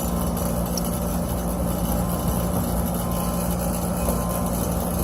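Carrier split-system condensing unit running steadily with its contactor held in, compressor humming under the rush of the condenser fan, as it pumps the R-410A charge down into the condenser and pulls the suction side toward a vacuum.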